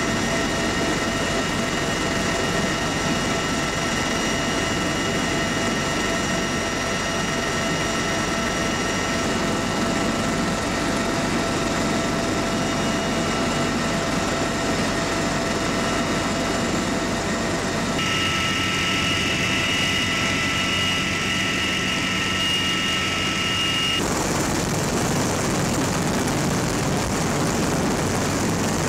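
Military rotorcraft heard from inside the cabin by the open rear ramp: steady turbine whine over loud rotor and engine noise. The sound changes abruptly twice in the later part, and near the end becomes a broader rushing noise as the rotor wash blows up dust.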